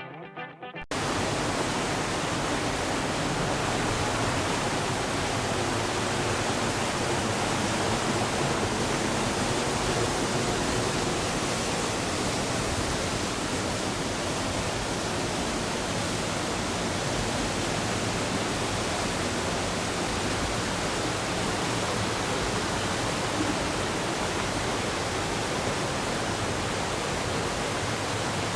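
A river in flood, swollen by typhoon rains, rushing past in a steady roar of fast water. It cuts in suddenly about a second in, after a brief strum of guitar music.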